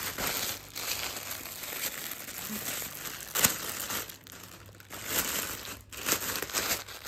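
Clear plastic packaging crinkling and rustling as hands pull and squeeze a garment's plastic bag, with a sharp crackle about three and a half seconds in.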